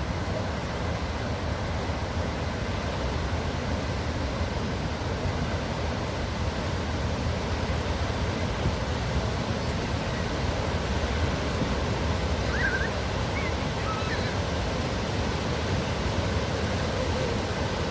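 Waterfall: water pouring and crashing in a steady, unbroken rush with a deep low rumble.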